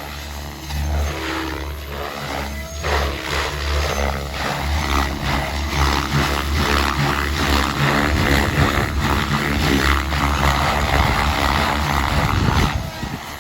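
Electric RC 3D helicopter (KDS A5) in flight: main rotor blades chopping and whooshing with the motor's whine, the pulsing rising and falling as the blades are loaded through aerobatic manoeuvres. The sound drops away sharply near the end.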